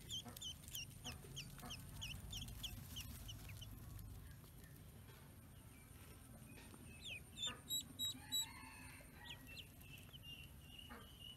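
Ducklings peeping: short, high, falling peeps, about three a second at first, then fewer and more scattered. Three louder short sounds come in quick succession a little past the middle.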